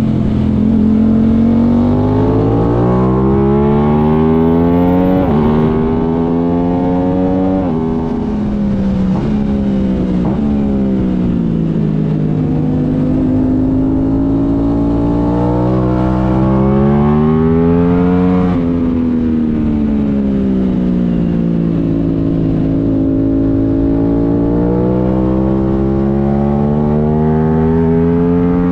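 Onboard sound of an Aprilia sportbike's engine at track pace. The revs climb through several quick upshifts, then fall off for a corner, and pull hard up again twice more.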